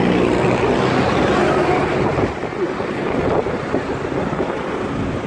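Motorcycle engine running at low speed in city traffic, with road and traffic noise around it. The engine's steady hum is clearest in the first second or so, then mixes into the traffic noise.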